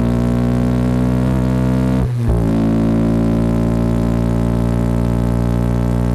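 Honda CB190R's single-cylinder engine running steadily under way, a steady drone with a brief break about two seconds in before it picks up again.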